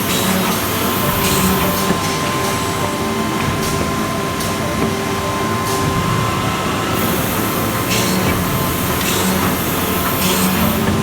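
Woodworking machinery running with a steady hum, broken by short bursts of hiss every second or few.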